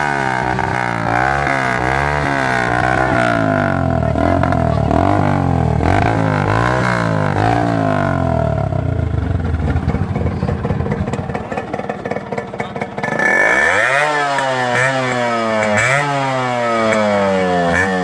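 A Hero Honda Splendor Plus's 100cc four-stroke single-cylinder engine is revved in quick repeated throttle blips, then settles to a steadier, quieter run. About thirteen seconds in, a Yamaha RX100's two-stroke single with an aftermarket exhaust takes over, revved in repeated sharp rising bursts.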